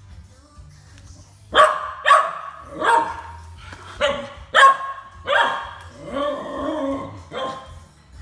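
Miniature schnauzer barking excitedly, about seven loud barks starting about a second and a half in, the later ones drawn out into howl-like cries: a dog's happy greeting when its owner comes home.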